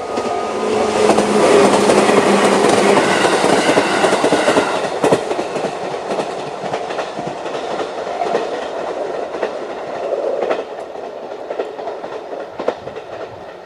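JR East 211 series electric train passing over a level crossing, its wheels clacking over rail joints. The rumble is loudest in the first few seconds, then slowly fades as the train moves away, with a few single clacks late on.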